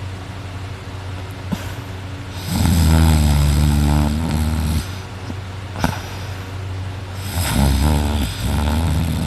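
A person asleep on their back snoring loud: long, low snores about two and a half seconds in and again from about seven seconds in, each lasting around two seconds. There is a short click between them.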